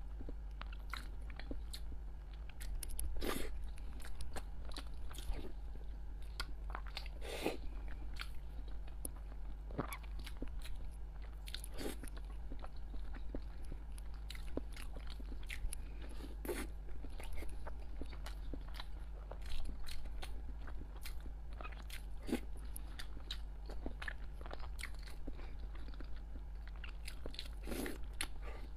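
Close-miked biting and chewing of hard-boiled eggs, with wet mouth clicks and smacks at irregular intervals, over a steady low electrical hum.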